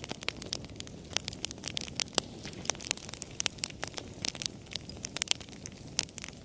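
Wood fire crackling: frequent sharp, irregular pops and snaps over a low, steady rush of the flames.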